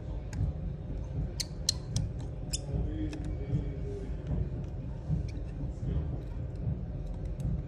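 Scattered sharp little clicks and taps of a precision screwdriver and small metal parts on an opened iPhone 11, over a steady low rumble. The clicks come closest together about one and a half to three seconds in.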